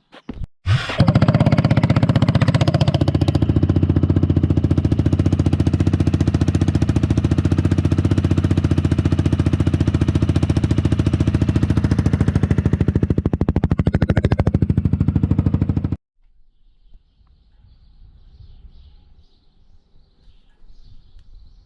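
Aprilia Scarabeo 400 cc scooter engine through an Akrapovic exhaust: it is cranked and catches within about a second, idles steadily and loud, is blipped once near the middle-end, and cuts off abruptly. Faint bird chirps follow the shutdown.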